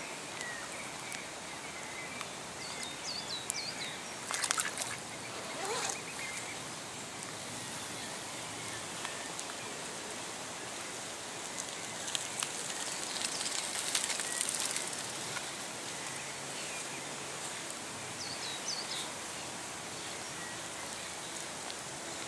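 Outdoor ambience: a steady hiss with a few short, faint bird chirps scattered through, and the odd soft click.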